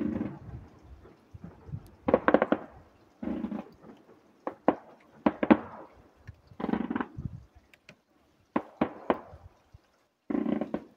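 Aerial fireworks bursting in the sky: a run of sharp bangs, some single and some in quick clusters, each trailing off in an echoing rumble.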